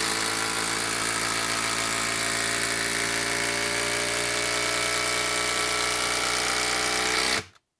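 HILTI 12 V brushless impact driver hammering continuously while driving a long TimberLOK structural wood screw into a log round: a steady, even buzzing rattle that cuts off abruptly near the end.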